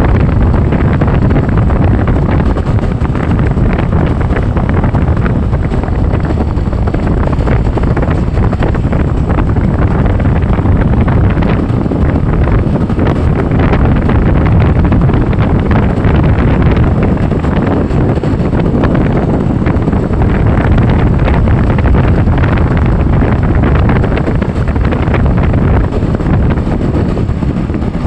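Wind buffeting the microphone of a camera on a moving vehicle: a loud, steady rush and rumble of air with no clear engine note.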